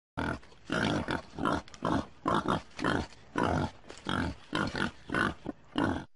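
Wild boar grunting over and over, about ten short, rough grunts at a steady pace of roughly two a second.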